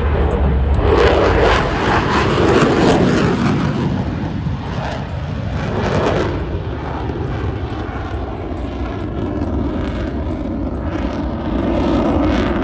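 Aircraft flying past, a loud rushing engine noise that swells and fades, loudest over the first few seconds and rising again around six seconds in and near the end.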